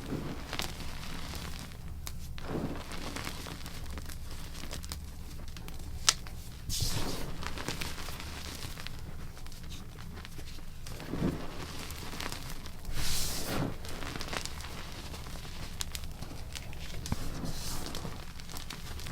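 Blocks of gym chalk being crushed and crumbled: irregular dry crunching and crackling with scattered sharp cracks, the loudest crunches about a third and two thirds of the way through.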